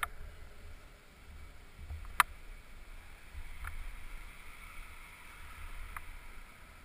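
Low rumbling rub and handling noise on a helmet-mounted camera, with one sharp click about two seconds in and a couple of fainter clicks later.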